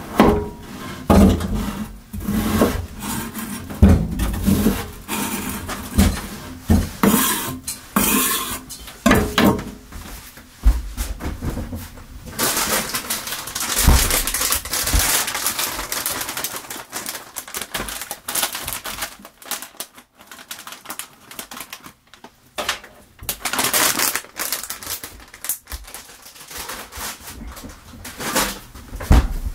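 Kitchen knife cutting on a wooden chopping board: a run of short knocks through the first ten seconds or so. About twelve seconds in, a steady hiss starts and lasts several seconds, then scattered clatter of dishes and utensils.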